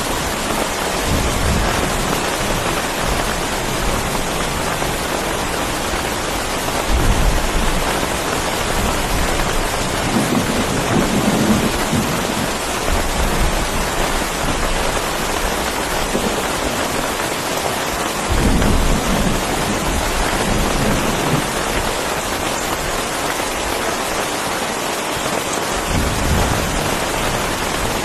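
Heavy rain falling steadily, with several low rumbles of thunder, the loudest at about seven seconds in and again at about eighteen seconds.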